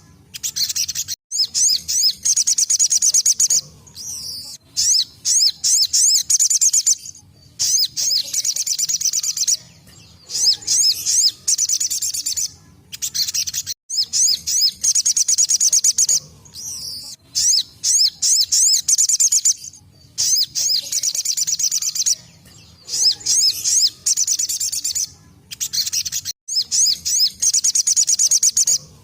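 Crimson sunbird (sogok ontong) singing its fast 'tembakan' burst song: runs of rapid, high-pitched trilling chirps a couple of seconds long, repeating again and again with short gaps between.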